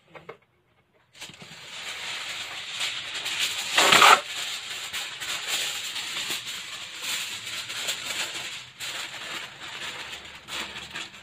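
Aluminium foil crinkling and rustling as hands fold and tuck it over a turkey in a roasting pan, starting about a second in, with one louder crumple about four seconds in.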